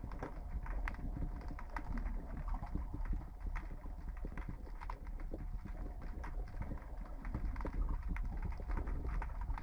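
Underwater recording from the sea floor at night: dense, irregular clicking and crackling over a steady low rumble, with a faint thin tone held underneath.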